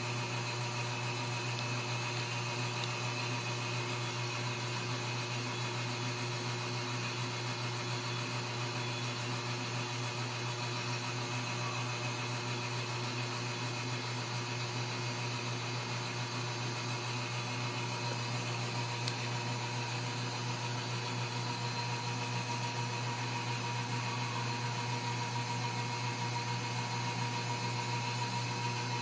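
Steady low hum with a few faint, steady higher tones above it and no change in level.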